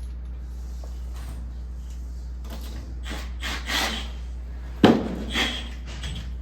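Handling knocks and scrapes from work on the panel installation, with one sharp bang about five seconds in, over a steady low hum.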